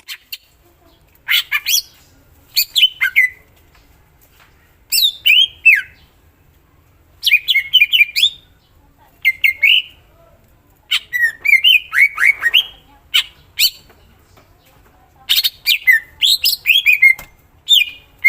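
Cucak ijo (greater green leafbird) singing loud phrases of rapid chattering and quickly falling notes, a new phrase every second or two, as its full mimicked repertoire.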